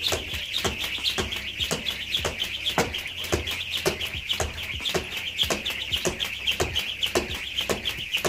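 Jump rope turning fast for double unders, its rope slapping the tiled floor in a steady rhythm of about two or three clicks a second, over a continuous high, rapidly pulsing rattle.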